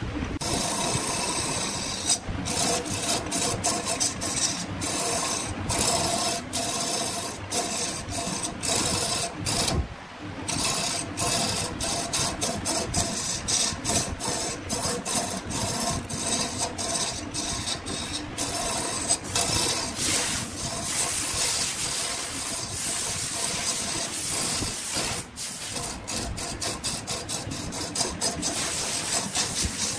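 Turning tool scraping and cutting wood on a running wood lathe: a continuous rasping with a faint steady machine tone under it and many short sharp ticks.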